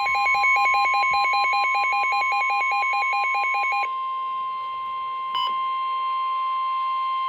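NOAA Weather Radio warning alarm tone: a single steady 1050 Hz tone that signals a warning is about to be read. For the first four seconds it is overlaid by rapid electronic beeping, about nine beeps a second, which then stops, leaving the tone alone.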